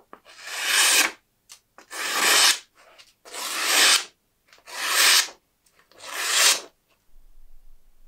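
Five slow, even abrasive strokes worked by hand, about one every 1.3 seconds, each growing louder through most of a second and then stopping sharply, with small clicks between strokes.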